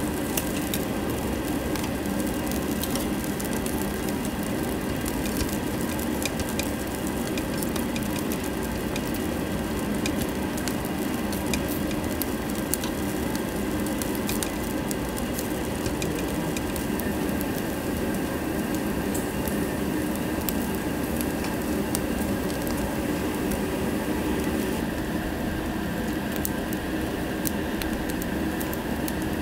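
Pork skin and other pork pieces sizzling on a tabletop grill, with steady crackling and small pops of spitting fat, over the steady hum of the overhead extractor hood. Tongs occasionally tap the grill.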